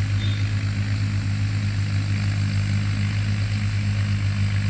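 Ford 3600 tractor's three-cylinder diesel engine running steadily with a low, even drone while tilling, working easily without labouring.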